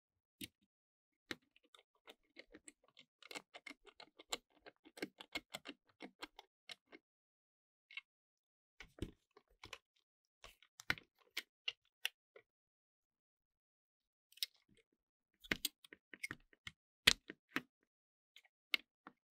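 Irregular sharp clicks and taps of small hard plastic parts being handled, like controller pieces being fitted and pressed together. There is a quick run of clicks early on, scattered ones after that, and a louder cluster near the end.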